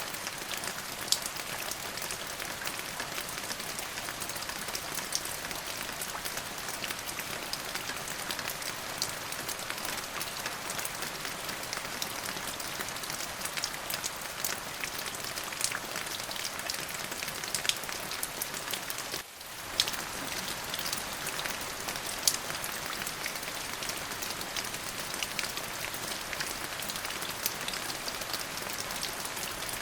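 Steady rain falling on a surface, a dense hiss dotted with many sharp individual drop ticks. The sound dips out briefly about two-thirds of the way through.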